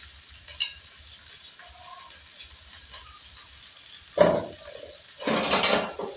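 Oil sizzling steadily in a wok on a gas stove as food fries, with two louder scrapes of a metal spatula stirring in the pan about four and five and a half seconds in.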